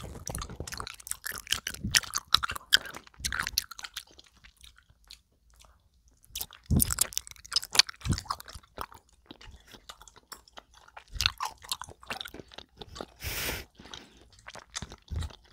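Close-miked chewing of soft, chewy egg-shaped gummy jelly: wet smacking and clicking mouth sounds, easing off briefly in the middle, with a short hiss near the end.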